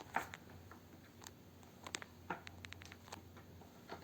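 Faint, scattered small clicks and taps over quiet room tone.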